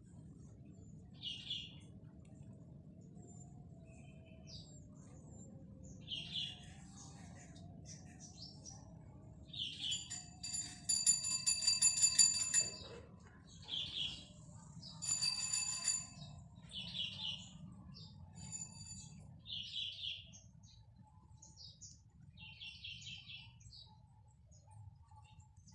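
Birds calling: a short high chirp repeated every few seconds, with a louder buzzing call twice near the middle, over a low steady background rumble.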